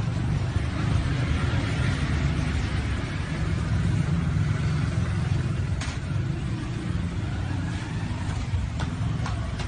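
Street traffic: motor scooters and cars passing, a steady low engine rumble, with a few sharp ticks in the second half.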